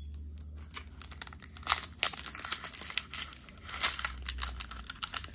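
Foil Pokémon booster pack wrapper crinkling as it is handled and opened, a dense run of irregular sharp crackles.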